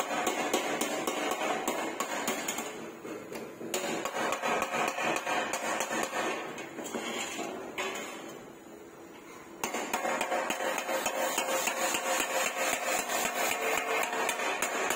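Rapid, repeated hammer strikes on sheet-metal car body panels, with the metal ringing. The hammering changes abruptly a few times, quieter for a while in the middle.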